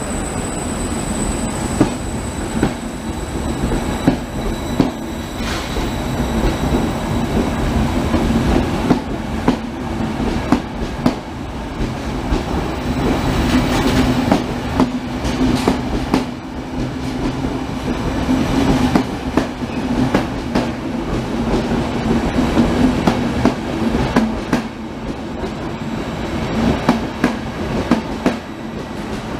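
Trenitalia Intercity passenger coaches rolling past, the wheels clacking irregularly over rail joints above a steady low rumble and hum.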